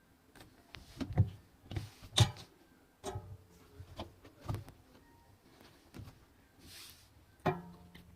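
About a dozen light, scattered knocks and clicks of hard objects being handled around a washing machine, a few of them with a short ringing tone. The loudest come between one and two and a half seconds in, and the last, near the end, rings a little longer.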